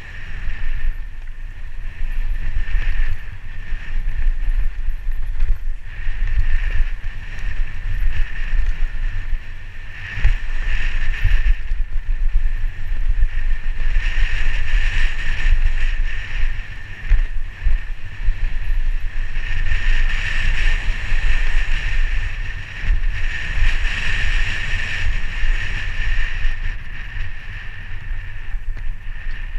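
Wind buffeting a helmet-mounted camera's microphone and tyres rolling over a dirt trail as a mountain bike descends, with a steady high buzz that swells and fades.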